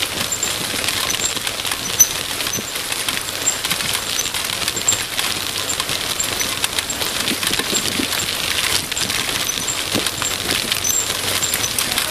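Mountain bike rolling over a rough gravel dirt road, heard from a handlebar-mounted camera: a steady crunch and rattle of tyres and bike over the loose surface, with many small clicks and knocks.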